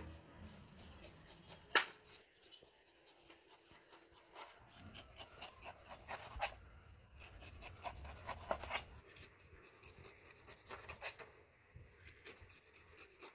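Kitchen knife cutting the skin off a whole pineapple on a plastic cutting board: faint, irregular crunching and scraping cuts, with one sharp click a little under two seconds in.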